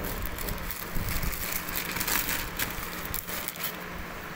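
Clear plastic packet rustling and crinkling as it is handled and opened close to the microphone, with irregular sharp crackles.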